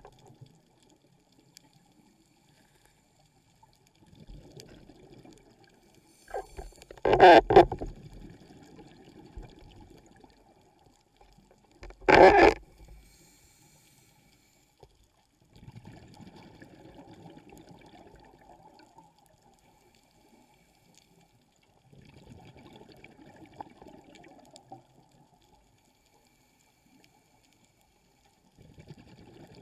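Scuba diver's breathing on a regulator, heard underwater: hazy rushing breaths and exhaled bubbles recurring about every six seconds, with two loud bubble bursts about 7 and 12 seconds in.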